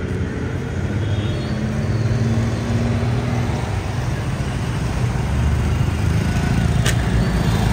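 City road traffic: vehicle engines running and passing in a steady low rumble, with one sharp click near the end.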